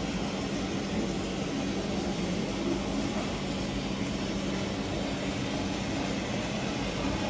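Steady low mechanical hum, with a few constant low tones, of the kind made by an aquarium hall's pumps and ventilation.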